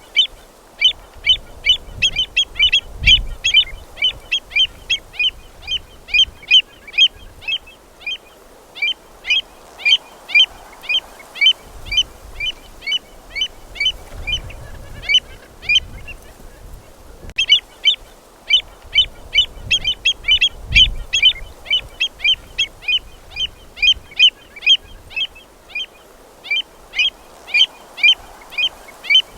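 A flock of California gulls calling over and over, short overlapping calls at about three or four a second, with a brief lull partway through. Low gusts of wind rumble on the microphone now and then.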